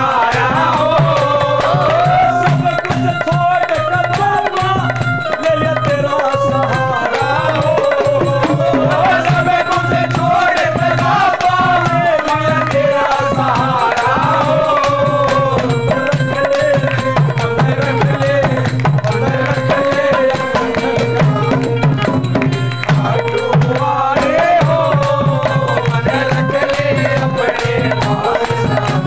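Devotional kirtan music: a melody instrument playing a gliding, ornamented line over a steady tabla rhythm, with no singing.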